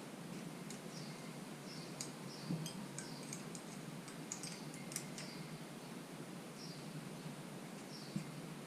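A run of small, light metallic clicks and ticks from hand tools and engine parts being handled, bunched in the middle, over a low steady hum. Short high chirps repeat throughout, like a small bird calling.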